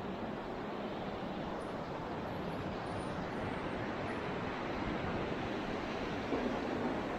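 River Tay rapid rushing steadily, an even roar of whitewater that grows slightly louder toward the end.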